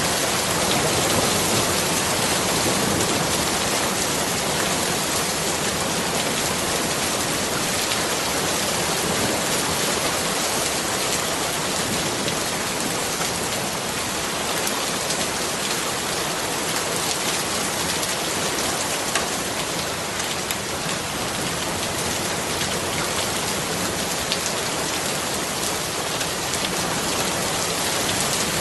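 Steady rain falling, an even hiss with faint scattered drop taps.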